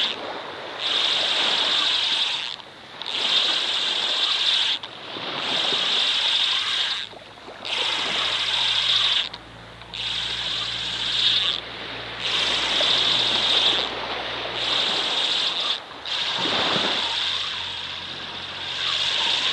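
A fishing reel being cranked to retrieve the line after a long cast. It whirs in repeated spells of about two seconds, each broken by a short pause.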